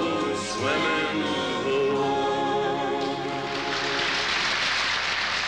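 Backing choir singing held closing notes of a slow country song, which fade out about three and a half seconds in as a steady rushing hiss rises in their place.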